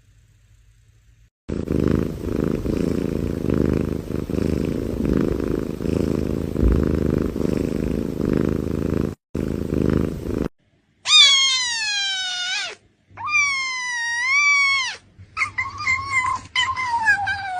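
A cat purring, a low steady rumble lasting about nine seconds. After a short break come three long, drawn-out cat meows, each sliding in pitch, the middle one dipping and rising again.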